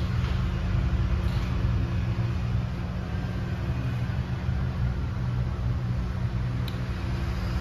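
Steady low rumble with a faint hum underneath, even throughout, and a light click about two-thirds of the way through.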